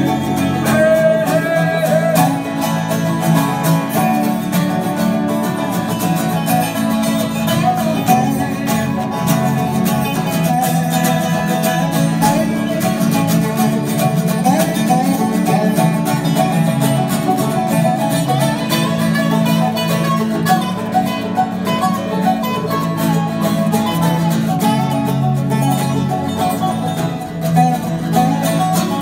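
Live acoustic trio playing an instrumental passage: strummed acoustic guitar, picked five-string banjo and slide guitar played lap-style.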